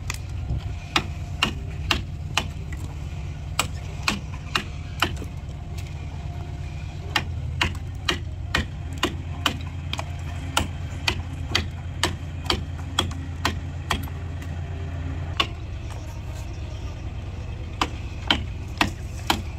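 A chisel being driven into boat timber: sharp knocks roughly two a second, with two short pauses, over a steady low hum.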